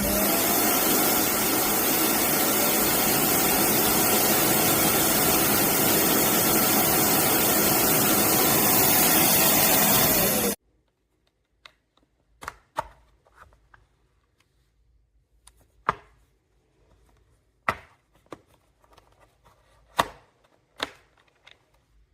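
Roborock H60 Ultra cordless vacuum running loudly for about ten seconds, then cutting off abruptly. Scattered light clicks and knocks follow.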